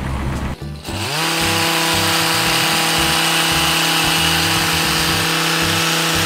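Power hedge trimmer spinning up to speed about a second in, then running steadily.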